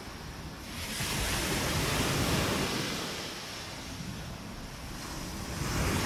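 Ocean waves breaking and washing up the beach, one swell building about a second in and another near the end.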